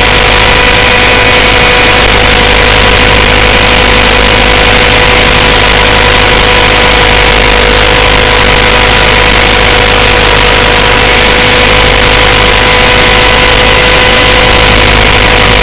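RC helicopter's small nitro glow engine and rotor running steadily at high volume, heard from a camera mounted on the helicopter, with a steady whine over a broad mechanical noise.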